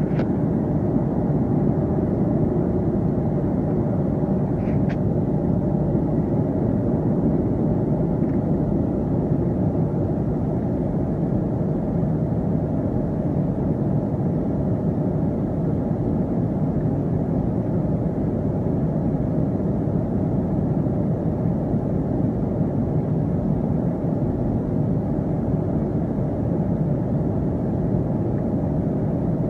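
Steady, unchanging drone of an airliner cabin at cruise: jet engine and airflow noise heard from inside at a window seat.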